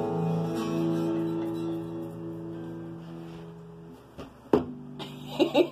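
Acoustic guitar chord ringing out and slowly fading. About four and a half seconds in there is a sharp knock, and a new low chord is struck and left to ring.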